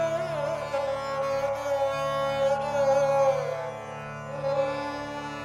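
Background music: a melody that slides up and down in pitch over a steady drone.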